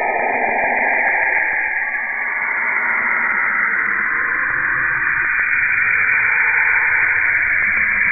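Saturn's radio emissions converted into audible sound: a steady, dense hiss with faint gliding tones that fade out in the first couple of seconds, and a low rumble that comes in about halfway through.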